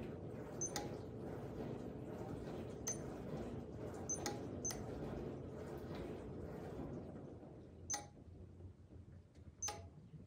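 Quiet room noise with about six faint, sharp clicks at irregular spacing; the low background drops away near the end.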